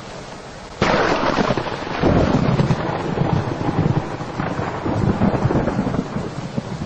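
Thunderstorm sound: steady rain, then a sudden crack of thunder about a second in that turns into a long rumble.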